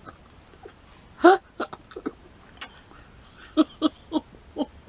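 A person's short vocal sounds: one brief voiced sound about a second in, then a run of four quick voiced bursts near the end, with a few faint clicks between.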